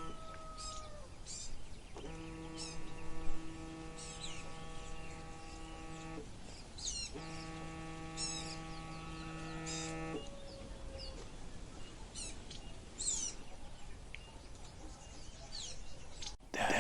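Small birds chirping and twittering throughout. Twice, a steady low humming tone with a rich set of overtones is held for about four seconds and then cuts off: once about two seconds in, and again about seven seconds in.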